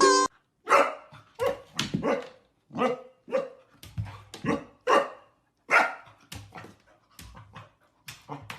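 A dog barking repeatedly, about a dozen short barks at uneven intervals.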